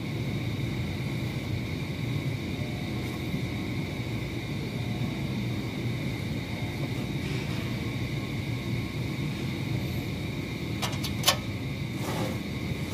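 Steady low rumble with a faint, high, steady whine over it, and a few sharp clicks about eleven seconds in.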